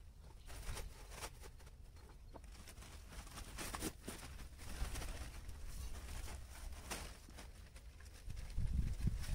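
Scattered knocks and rustles of a tarpaulin and its rope being handled and tied over a poultry shed, with a louder low rumble near the end.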